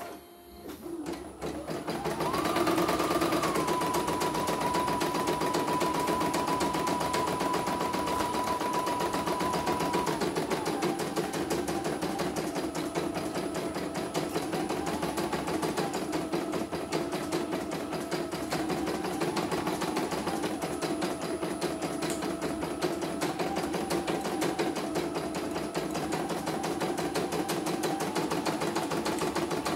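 Computerized single-needle CNY embroidery machine starting up and stitching a design on a test run. It starts about a second in and settles into rapid, steady needle strokes. Over the strokes, a motor whine is high at first, drops to a lower pitch about ten seconds in, then rises and falls slightly.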